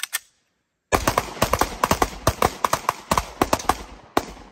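Rapid handgun fire from two shooters firing together: about twenty sharp shots in three seconds, some overlapping, starting about a second in, with one last shot near the end.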